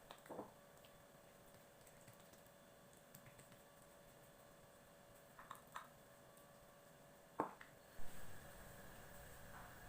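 Near silence broken by a few faint clicks and light knocks, about five in all, the sharpest two near the end; a soft steady hiss grows slightly in the last two seconds.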